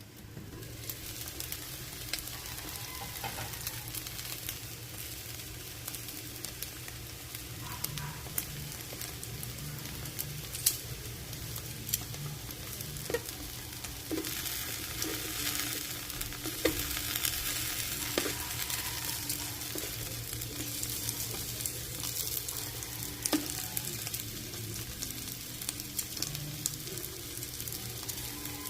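Food sizzling as it fries in oil in a pan, with scattered clicks and taps of a utensil. The sizzle grows louder about halfway through, over a steady low hum.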